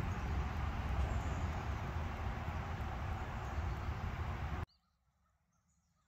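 Wind buffeting the phone's microphone as a steady, rumbling rush that cuts off suddenly near the end. After it comes near silence with a faint bird chirp.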